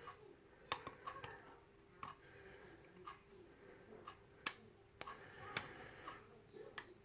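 Faint, irregular sharp metallic clicks from a lock pick and tension wrench working the pins of a Wilka euro cylinder lock, roughly half a dozen clicks spread over several seconds.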